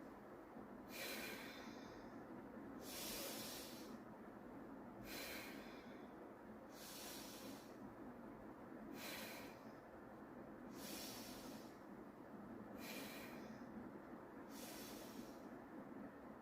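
A woman's slow, deep breathing exercise: long breaths in and out, faint and hissing, one breath about every two seconds.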